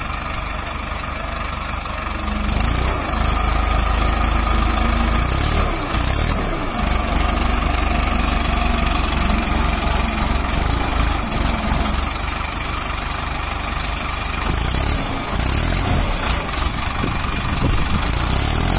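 Mahindra Arjun 555 DI's four-cylinder diesel engine running under load as the tractor tries to drive out of deep mud. It gets louder about two and a half seconds in and stays high, with small dips, and a few short bursts of hiss.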